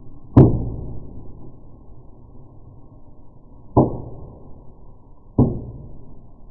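Three dull, deep bangs from small indoor fireworks, each dying away over about a second; the first, about half a second in, is the loudest, the other two come close together near the end.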